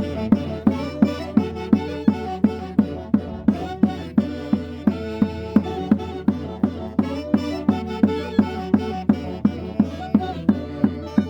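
Andean folk band playing caña y quinto music: a drum struck steadily about three times a second under a sustained melody.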